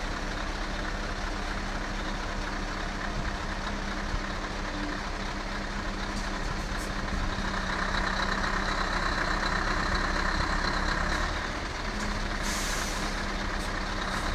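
Scania R560's V8 diesel running at low revs as the truck creeps forward, with a long hiss of compressed air from its air brakes about halfway through and a sharper, higher air hiss near the end.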